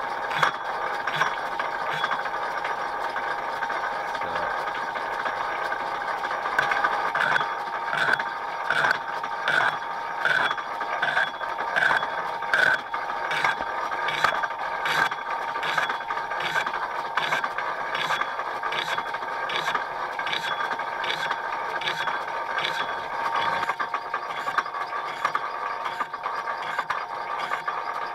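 Metal lathe taking an interrupted cut on an out-of-round, hard flame-cut steel plate. The tool knocks on the high spots once per turn, a regular knock a little faster than once a second over the lathe's steady running. This rattling is the sign of the egg-shaped, hard work.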